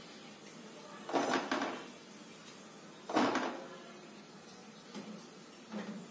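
Kitchen items being handled beside the stove: two short bursts of handling noise, about a second in and about three seconds in, with two softer knocks near the end.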